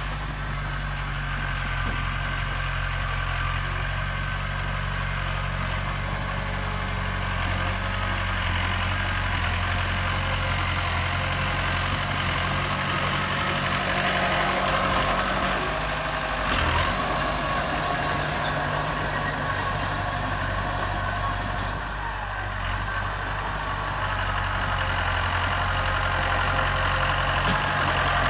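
Heavy diesel engine running steadily at low speed, with a brief knock about two-thirds of the way through.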